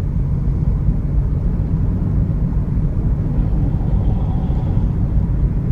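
Steady low rumble of a car driving on the road, engine and road noise with no speech over it.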